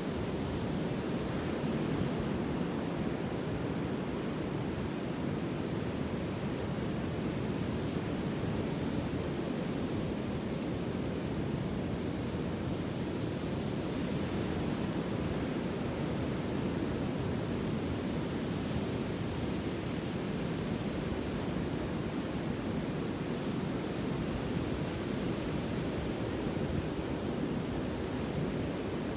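Sea waves washing in a continuous, even rush with only slight slow swells in loudness.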